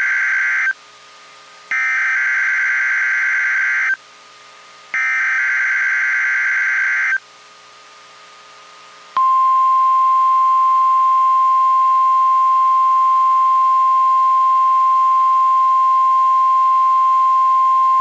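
NOAA Weather Radio SAME data header: the end of one burst, then two more bursts of buzzy digital data tones, each about two seconds long with short gaps between. About two seconds later comes the steady 1050 Hz warning alarm tone, held for about nine seconds, sounded for the required weekly test.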